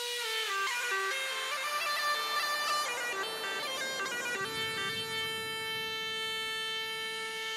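Background music on a bagpipe-like wind instrument. It plays a melody for about four seconds, then holds one long steady note.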